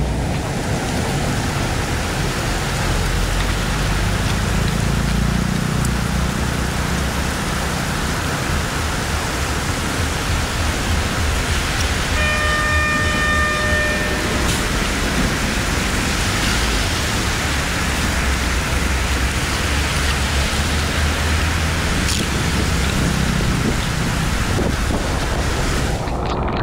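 Heavy rain falling on a flooded road, a steady hiss, with the rumble of traffic driving through the water swelling and fading underneath. A steady pitched tone sounds for about two seconds near the middle.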